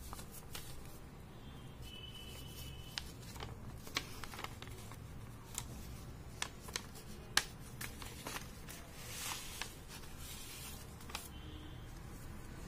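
Paper envelope being handled and opened and a card slid out of it: scattered sharp paper crinkles and taps, with a longer rustle of paper sliding about three-quarters of the way through.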